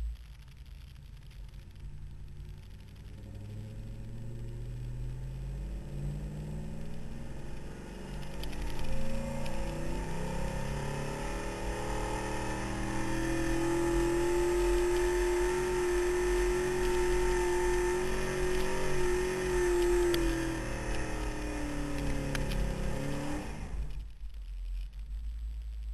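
GMC pickup engine under full load pulling a truck-pull sled. The revs rise in steps over the first several seconds, then hold high and steady, and the engine cuts back abruptly a couple of seconds before the end.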